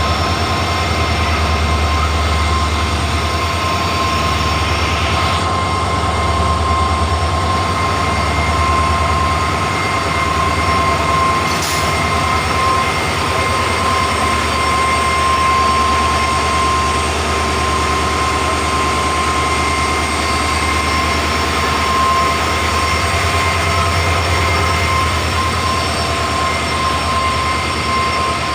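Twin WDP-4 diesel-electric locomotives running: a loud, steady engine hum with a deep rumble underneath and a constant high whine on top.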